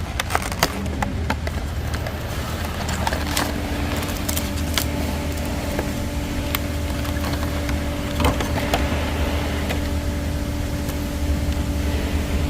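Car engine idling, heard from inside the cabin as a steady low rumble, with a steady hum joining in about three seconds in. A few sharp clicks and rustles of a trading-card deck's packaging being handled come mostly near the start.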